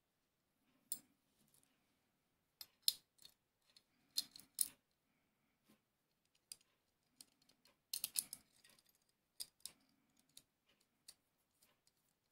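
Small steel parts of a replica Circassian miquelet flintlock lock clicking and clinking as they are handled and fitted together by hand, with a soft rustle of handling between them. The clicks come irregularly, in small clusters about a second in, around three to five seconds in, and loudest about eight seconds in.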